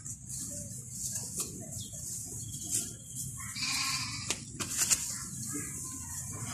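An animal calls once, bleat-like and about a second long, a little past halfway through, with a fainter call near the end. Under it are scattered light knocks and scrapes of hands working loose soil, over a steady high hiss.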